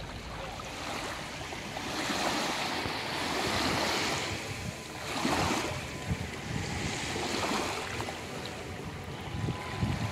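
Small sea waves lapping and washing onto a beach, rising and falling in surges, with wind buffeting the microphone.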